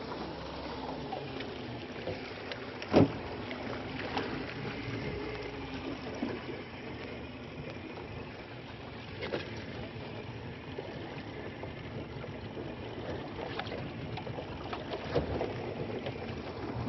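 Light water noise around a fishing boat, broken by scattered knocks and clicks of gear being handled, one sharper knock about three seconds in.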